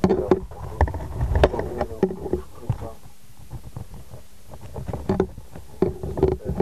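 Handling noise from a cut-down plastic syringe barrel and a small DC motor being picked up and fitted together by hand: irregular rubbing, scraping and small knocks, busiest in the first couple of seconds and quieter in the middle.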